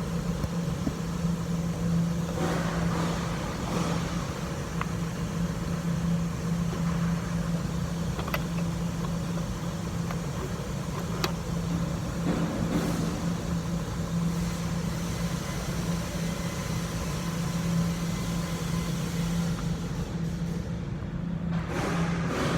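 Engine running steadily at idle, a constant low hum, with a few light clicks over it.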